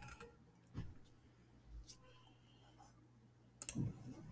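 Faint clicking from a computer keyboard and mouse: single clicks about one and two seconds in, then a quick run of key presses near the end.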